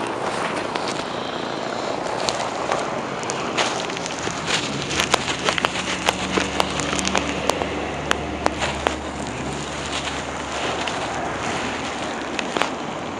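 Street traffic noise in a windy snowstorm, with a vehicle's engine running low from about five to ten seconds in, over a scatter of sharp crackling clicks.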